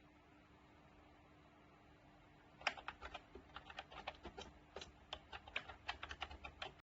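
Typing on a MOFII wireless retro-style keyboard: faint room tone, then a quick, uneven run of key clicks about two and a half seconds in that cuts off abruptly near the end.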